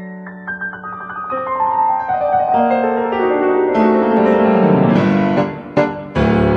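Background piano music: a run of notes stepping down in pitch, then sharp repeated struck notes near the end.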